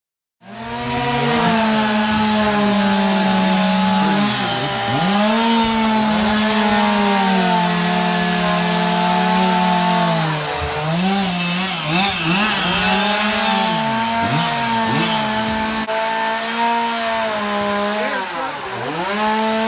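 Chainsaw running at high revs while cutting wood for carving. It starts abruptly, and its pitch drops and recovers several times as the saw loads in the cut or the throttle eases.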